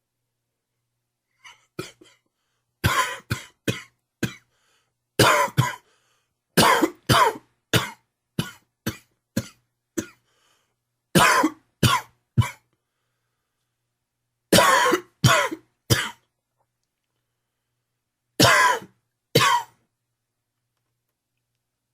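A man's hacking smoker's cough: fits of two to five short, harsh coughs, one after another, with pauses of one to three seconds between fits. The uploader puts the cough down to too much smoking and humid weather.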